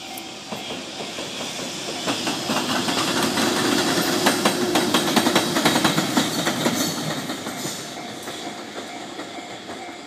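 JR Freight EH200 two-section electric locomotive running light past at close range. Its wheels clatter rapidly over the rails, building to a peak with a steady hum about four to six seconds in, then fading as it moves away.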